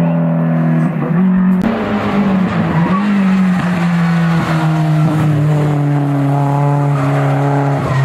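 Peugeot 205 hill-climb competition car's engine at full throttle, revs dipping briefly twice at gear changes, then held high with a slowly falling note as it passes.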